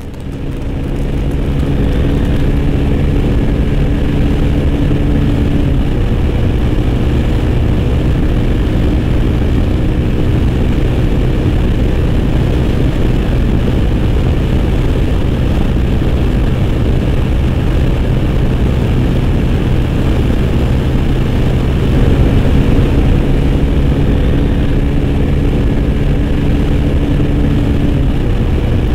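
Engine of a Yamaha 125 cc single-cylinder motorcycle running hard at speed, heard from on board with wind and road rush. The note holds steady and gets a little louder about 22 seconds in.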